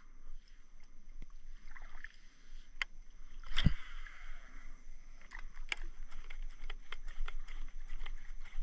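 Water lapping and splashing against a plastic kayak hull as it glides, with scattered small clicks and ticks. One hard knock on the hull comes about three and a half seconds in.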